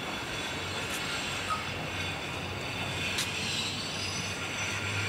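Steady street background noise: a continuous rumbling hiss with a low hum, a few light clicks and one sharp click about three seconds in.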